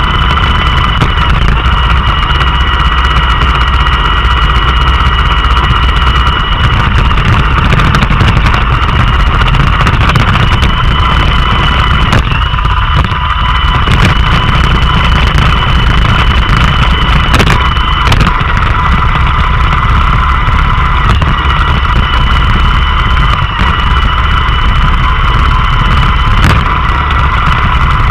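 Roomba robot vacuum running up close, with a steady whine from its fan and brushes over a low rumble. A couple of sharp knocks come in the second half.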